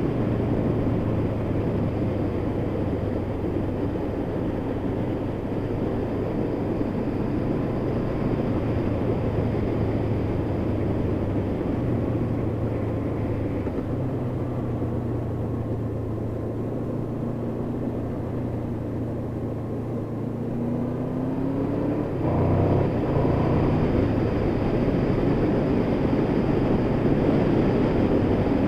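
Honda VFR800's V4 engine running steadily under way. About twenty seconds in the engine pitch rises, and about 22 seconds in it gets louder and stays up.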